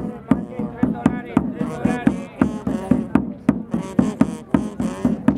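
A drum struck in a steady beat, about three strokes a second, with a voice over it.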